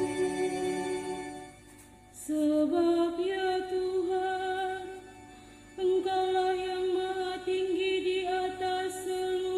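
Church choir singing in held, sustained phrases, breaking off briefly about two seconds in and again around five seconds in before the next phrase starts.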